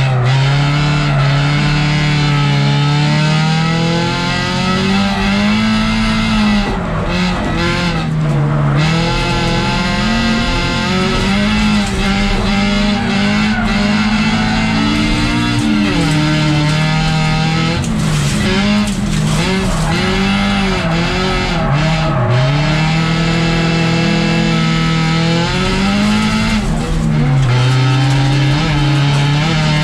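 Racing car engine heard from inside the cabin, revving up and falling back again and again through gear changes and corners, with tyres skidding on loose gravel.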